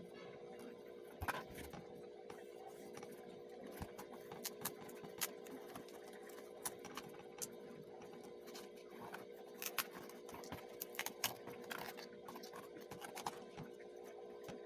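Stiff paperboard puzzle pieces being handled and slotted together by hand: scattered, irregular clicks and crackles, the sharpest about a second in and again near the end, over a steady low hum.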